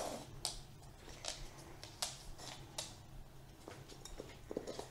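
A dog sniffing at the upturned pots in the shell game, searching for the hidden treat: a series of short, soft sniffs, about one every three-quarters of a second, with a few faint taps near the end.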